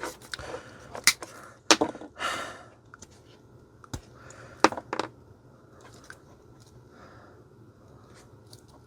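Hands working stranded wire ends into small connectors on a power-supply lead: scattered sharp clicks and short scrapes of metal and plastic, several in the first five seconds, then quieter.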